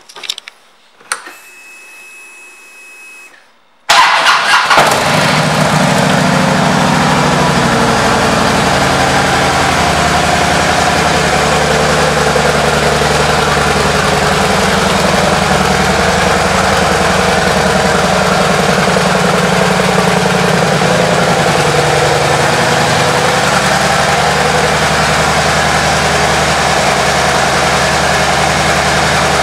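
2010 Harley-Davidson Ultra Limited's Twin Cam 103 V-twin engine. A click and a faint high whine come first, then about four seconds in the engine starts and settles into a steady idle.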